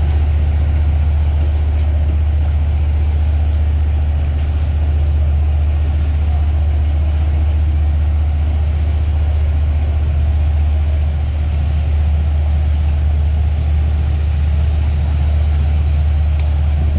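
Fireboat 7, a fire service catamaran, with its diesel engines running in a steady low drone as it moves away from the pier.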